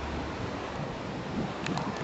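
Steady beach ambience: wind buffeting the microphone over the wash of gentle surf, with a couple of faint ticks near the end.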